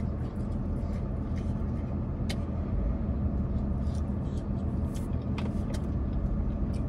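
Steady hum of a car engine idling, heard from inside the cabin, with a few light clicks and taps.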